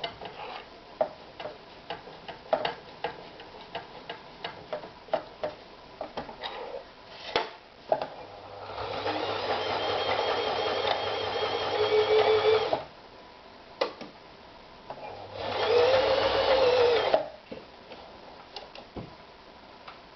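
Toyota EX 390 sewing machine stitching in two runs: the first lasts about four seconds and grows louder as it goes, the second about two seconds. Scattered clicks and knocks come before and between the runs.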